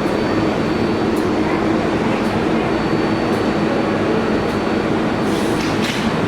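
Kawasaki R188 subway train on the 7 line, running with a steady rumble, a faint high whine and a light click about once a second. A brief high hiss comes near the end.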